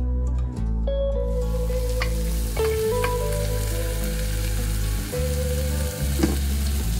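Sizzling hiss from a pot of oil-fried potato and cauliflower as water meets the hot pan and a wooden spoon stirs it, with a few sharp knocks of spoon and lid on the pot. Background music with sustained low notes plays underneath.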